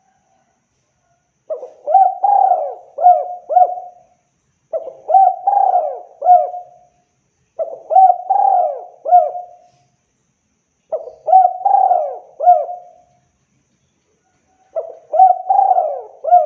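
Spotted dove cooing: five phrases of several quick coos each, repeated about every three seconds after a brief silence at the start.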